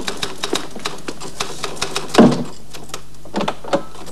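Office typewriter keys clacking in a quick, irregular run, with one heavy thump about two seconds in and a couple of softer knocks near the end.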